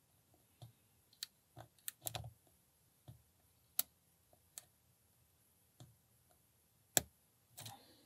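A lock pick working the pin tumblers of a Brinks 30 mm brass padlock during single-pin picking: faint, irregular metallic clicks and ticks, about a dozen in all, the sharpest about seven seconds in.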